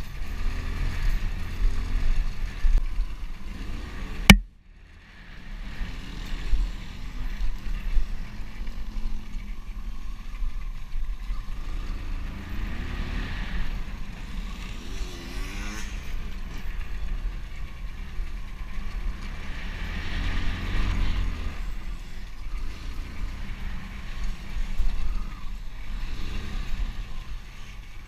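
Motocross bike engine revving up and down as it is ridden over rough dirt trail, heard through a helmet-mounted camera with a heavy low rumble from wind and vibration. A single sharp knock about four seconds in is the loudest sound, after which the sound drops away for about a second.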